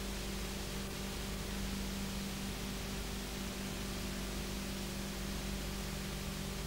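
Steady tape hiss with a constant low hum from a VHS tape's audio track, with no programme sound on it.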